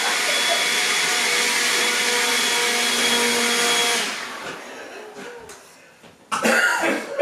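Leaf blower running steadily with a motor whine, then switched off about four seconds in and winding down to quiet. A burst of laughter comes near the end.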